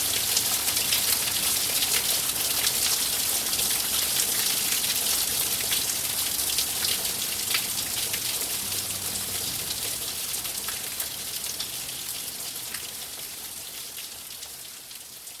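Steady rain: a dense, even hiss scattered with the ticks of single drops striking. It fades out slowly over the second half.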